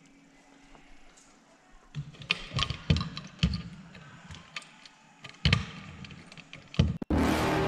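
Irregular knocks and clicks from someone handling a wooden gym locker, its door and fittings. Near the end the sound cuts off and a sudden loud rush of noise takes over, the loudest thing here.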